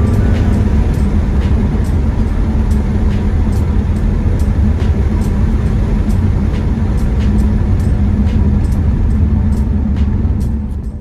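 BMW E46 330 driving: a steady low drone of engine and road noise with faint regular ticks over it, dropping away near the end as the car slows.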